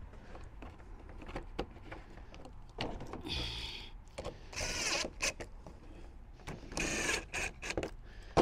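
Small cordless drill-driver whirring in three short bursts as it drives the part's small screws, run lightly so as not to crack the part, with light clicks and handling knocks between the bursts.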